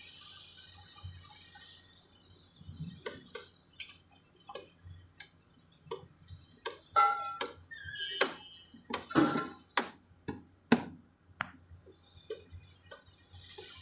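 Irregular sharp knocks and clanks, coming thickest and loudest a little past the middle, over a faint low steady rumble.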